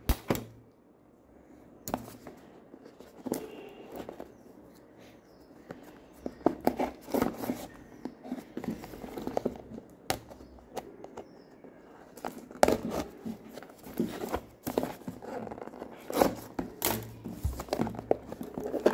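Clear packing tape on a cardboard box being slit with a scissor blade and peeled away, with irregular scraping, ripping and knocks against the box. The handling gets busier in the second half.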